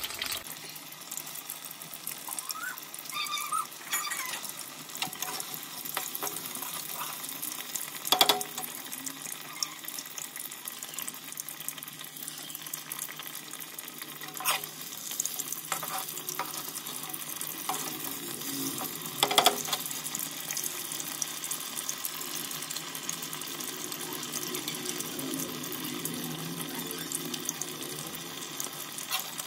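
Fish pieces deep-frying in hot ghee in an iron kadhai: a steady sizzle and bubbling. A few sharp clicks stand out, the loudest about eight and nineteen seconds in.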